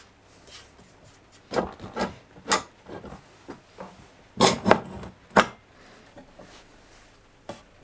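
Glued hardwood boards and pipe clamps being handled on a workbench while an edge joint is set up: a series of wooden knocks and clacks, the loudest in two clusters about one and a half and four and a half seconds in.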